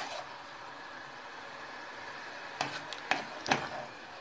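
A metal spoon stirring sugar syrup in a small metal saucepan, with a few sharp clinks of the spoon against the pot in the second half over a steady low hiss.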